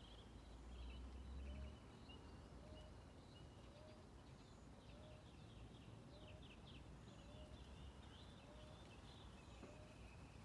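Faint birdsong: small birds chirping and trilling in quick high twitters, with a short low rising note repeating about once a second. A low rumble underlies the first two seconds.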